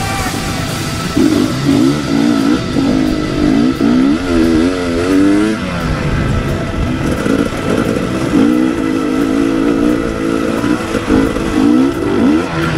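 Enduro dirt bike engine revving up and down again and again while riding, its pitch rising and falling with the throttle.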